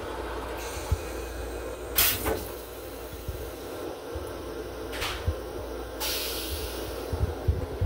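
Train toilet flushing: a sharp burst about 2 seconds in and another about 5 seconds in as rinse water runs into the stainless steel bowl and drains, then a hissing rush lasting about a second, over the steady low hum of the railcar.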